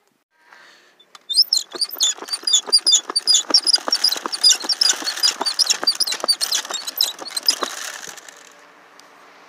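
Small hand-cranked wooden dry washer being worked, with gravel and dry dirt rattling and clattering through it in a fast, dense patter that starts about a second in and dies down near the end to a faint hiss.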